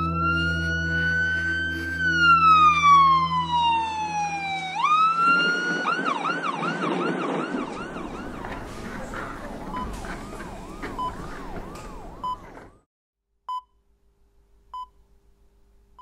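Emergency vehicle siren: a long wail that rises slightly and then glides down, jumps back up about five seconds in, and switches to a fast warbling yelp that fades out near the thirteen-second mark. A few faint short beeps follow near the end.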